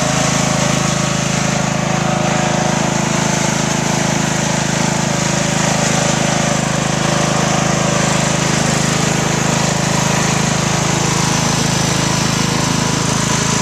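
Riding lawnmower engine running steadily while being driven, at an even pitch and level.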